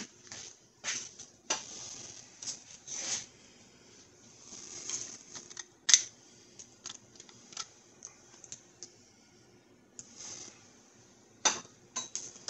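Light handling noises: scattered clicks, taps and short rustles, with a sharper click about halfway through and another near the end.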